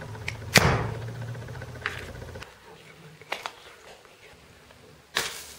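A few sharp clicks and snaps from small plastic and cardboard objects being handled, the loudest about half a second in and another near the end, with a low hum under the first two seconds.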